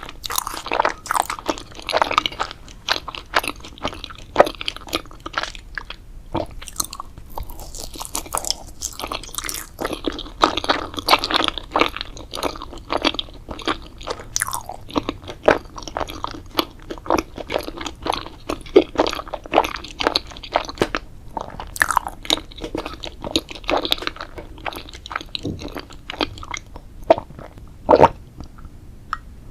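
Close-miked crunching and chewing of food, with many irregular sharp crunches. They thin out briefly about a quarter of the way in, and one loud crunch comes near the end.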